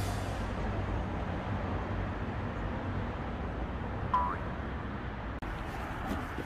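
Steady outdoor background noise with a low hum, and one brief high chirp about four seconds in.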